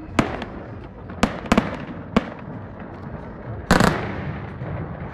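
Aerial fireworks shells bursting overhead: a string of sharp bangs over the first two seconds or so, then the loudest, longest blast a little before four seconds in, fading out after it.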